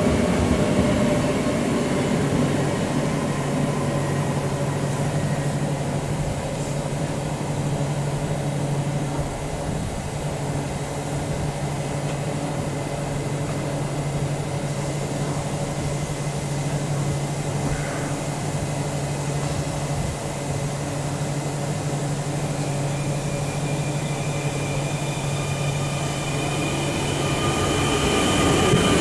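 Electric NS Sprinter train standing at the platform, its onboard equipment giving a steady low hum. Near the end a double-deck train rolls in close by with a rising whine, and the sound grows louder.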